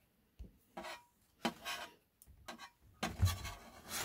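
Short scrapes, rubs and light knocks of thin sheet metal and a metal strap being handled at a hand pop rivet gun, a few separate touches about a second apart and busier near the end.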